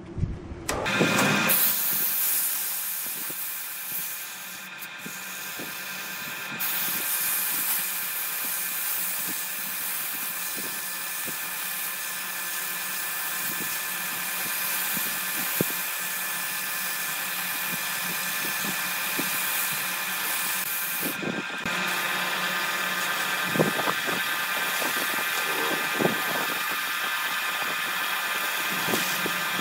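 Sandpaper held by hand against a wood vessel spinning on an electric wood lathe: a steady sanding hiss over the running lathe motor, starting about a second in.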